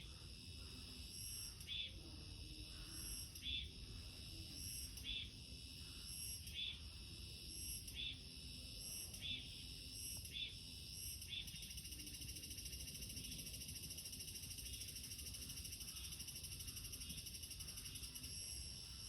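Faint outdoor ambience of insects chirping steadily in several high pitches. For the first half, a short call repeats about every second and a half; after that, a continuous high trill takes over.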